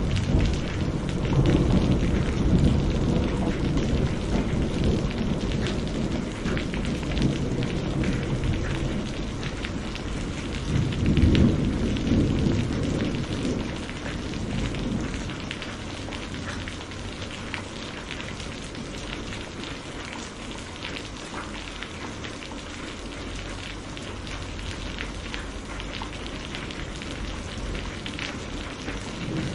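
Heavy rain falling steadily with thunder rolling twice: a long low rumble over the first few seconds that fades out, and another around eleven seconds in. After that only the rain continues, a steady hiss with fine drop ticks.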